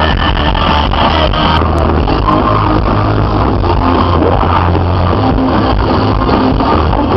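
Loud music with a heavy, steady bass.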